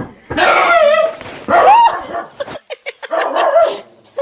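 A dog giving three drawn-out barking calls, the middle one rising in pitch.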